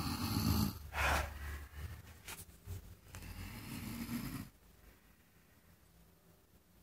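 Loud snoring in two breaths: a long, rough one with a sharper rasp about a second in, and a second one from about three seconds, after which the sleeper goes quiet.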